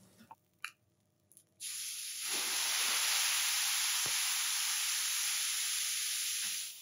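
Bordeaux red wine poured onto a hot teppanyaki griddle beside seared beef, flash-boiling with a loud, steady sizzling hiss as it flambés. The hiss starts suddenly after a couple of light clicks and cuts off shortly before the end.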